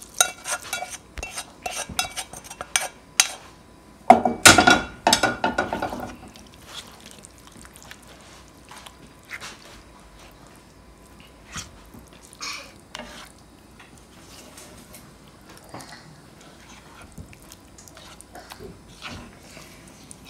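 Spoon clicking and scraping against a pan while mixed vegetables are stirred into a thick chicken pot pie filling. A louder drawn-out sound comes about four seconds in, then only occasional soft clinks.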